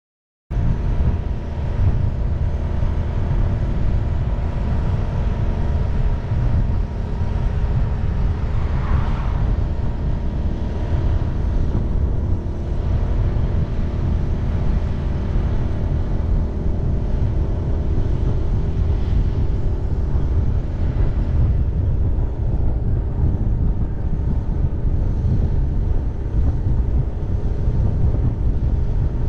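Steady motor vehicle engine and road noise, a low rumble with a constant hum, starting abruptly about half a second in after a moment of silence.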